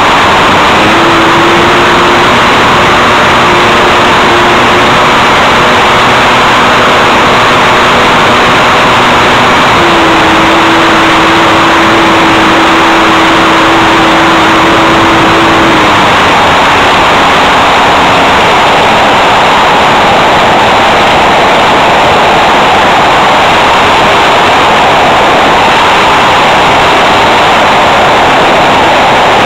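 Cabin noise of a Calmato microlight in flight: a loud, steady drone of engine, propeller and airflow. A humming note sits in it from about a second in and stops a little past the middle.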